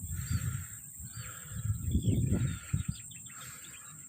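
Birds calling outdoors, with harsh calls repeated about once a second and small chirps mixed in, over a steady high-pitched insect drone. A low rumble swells about two seconds in.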